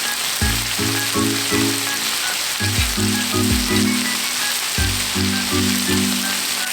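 Food sizzling as it fries in a pan, a steady hiss, over background music with a bass line and a steady kick-drum beat.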